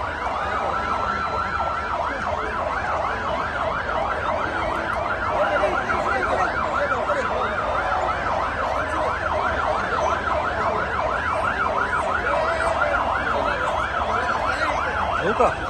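Mumbai Fire Brigade fire-engine sirens sounding together as a ceremonial salute, in a fast rising-and-falling yelp of about three sweeps a second. They stop near the end.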